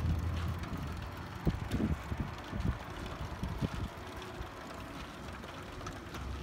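Wind buffeting the microphone in low, irregular thumps, over the running of a cement mixer's drive that turns a spit through a chain and sprockets.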